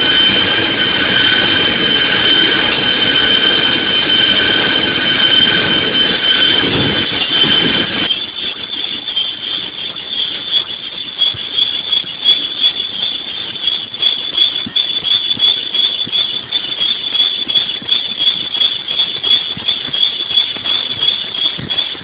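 Multi-hole drilling machine's drill bits cutting into a cast iron brake drum, giving a steady high-pitched squeal of metal being drilled. About eight seconds in the pitch shifts higher, the heavier low rumble falls away, and the squeal turns into a rapid pulsing.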